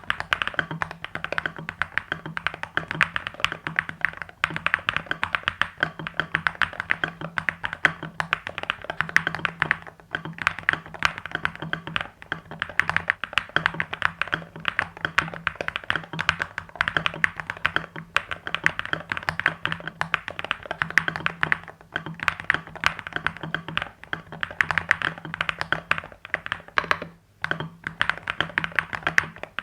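Fast continuous typing on an EPOMAKER HE75 V2 mechanical keyboard, stock, with Hall Effect Creamy Jade linear switches and ABS keycaps: a dense stream of key clacks with a brief pause near the end. A steady low hum runs under it.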